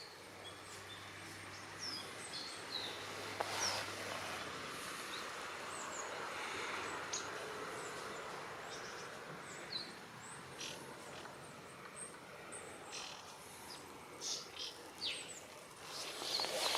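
Scattered short, high bird chirps over steady outdoor background noise, with a faint low hum in the first few seconds.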